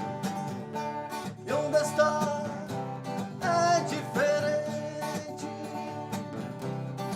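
Instrumental passage of a blues-rock song led by guitar over a steady accompaniment, with lead notes bending up in pitch several times.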